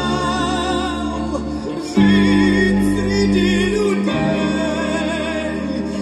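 Russian pop ballad played from a vinyl LP: a wavering vibrato melody over sustained low chords, with a louder, fuller chord coming in about two seconds in.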